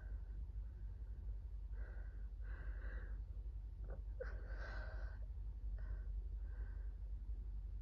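A person with a cold and a blocked nose breathing in short, noisy breaths with a wheezy whistle, a sign of the onset of asthma, and one louder, sharper breath about four seconds in.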